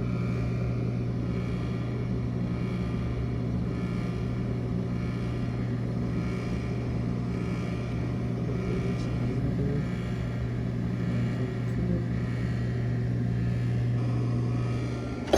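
A steady low mechanical hum, unchanging throughout, with no knocks or clinks.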